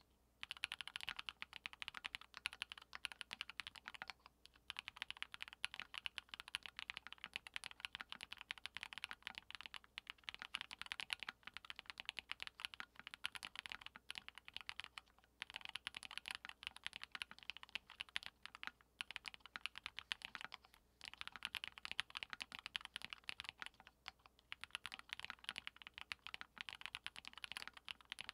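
Continuous typing on a Monstargear Sangeo60 custom 60% mechanical keyboard with an aluminium plate, lubed 55 g Durock POM linear switches and ENJOYPBT 9009 PBT keycaps: a rapid stream of key clacks with a few brief pauses.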